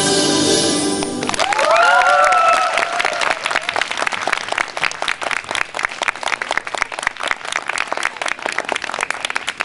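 Orchestral program music for a figure-skating free skate stops abruptly about a second in, and an arena audience breaks into steady applause, with a few cheers just after the music ends.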